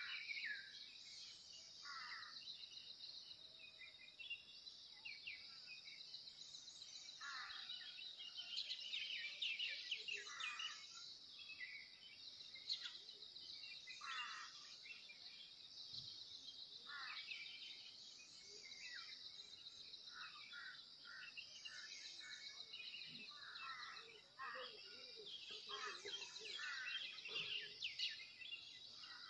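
Faint outdoor ambience: a steady high-pitched insect trill, with short chirping calls scattered over it every second or two.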